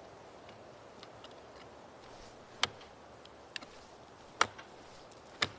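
Ice-climbing tools striking into frozen waterfall ice: four sharp strikes about a second apart from about halfway in, with a few fainter taps between.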